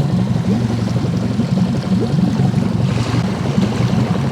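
A small fishing boat's motor running steadily at low speed as the boat is manoeuvred, a low, fast-pulsing hum.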